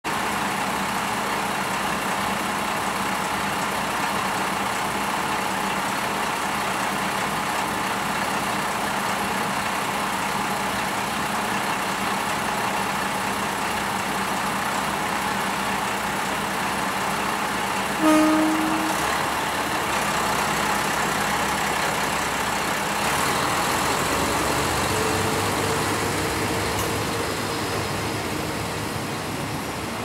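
Yuri Kogen Railway YR-1500 diesel railcars running at the platform with a steady engine note. Just past halfway a short horn toot sounds, then the engines rise in pitch as the three-car train pulls away.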